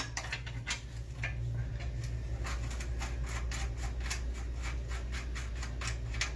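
Light metallic clicks, about three a second, with some rubbing, from hands and a tool working at a bicycle's front axle nut and retaining washer, over a steady low hum.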